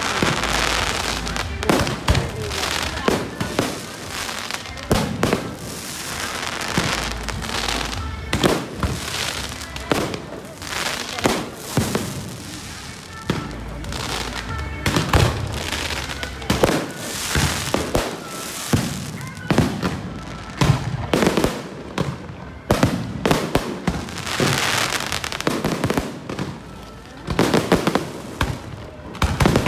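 Fireworks bursting one after another, a dense run of bangs coming several a second at the busiest moments.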